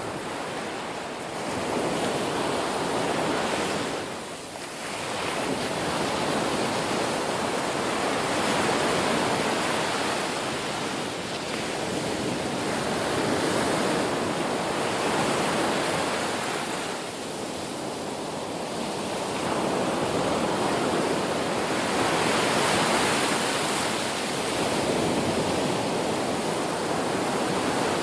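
Ocean surf: waves breaking and washing ashore in a continuous rush that swells and eases, with brief lulls about four and seventeen seconds in.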